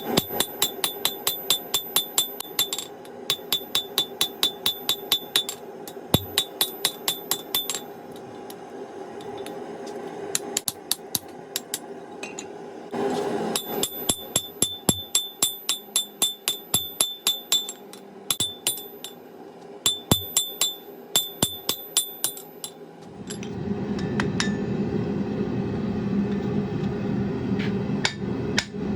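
Blacksmith's hand hammer striking hot steel on an anvil while forging a hold-down, in quick runs of about three to four ringing blows a second, with short pauses between runs. About three-quarters of the way through the hammering stops and a steady low rumbling noise takes over.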